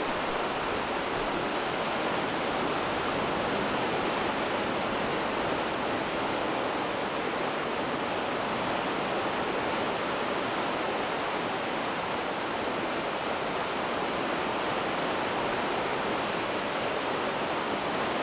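Steady, even rushing noise with no rise and fall and no distinct events.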